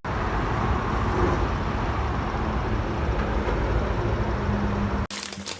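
Steady rumble of road traffic that cuts off abruptly about five seconds in, replaced by brief clicks and rustling.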